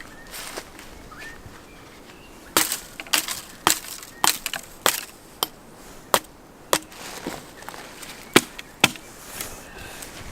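Axe chopping wood: a run of about a dozen sharp strikes, roughly two a second, with a short pause before the last two.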